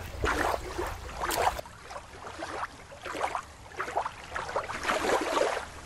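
Shallow water lapping at a rocky shoreline, then, about a second and a half in, the sound of open sea: irregular water slapping and wind.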